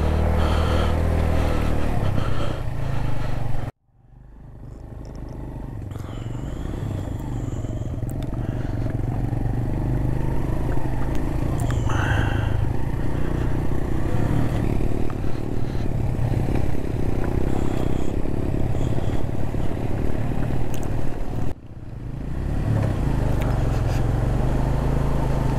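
Motorcycle engine running on a rough, rocky off-road track, with some clatter and scraping. The sound cuts off abruptly twice, about four seconds in and again near the end, and each time it swells back up gradually.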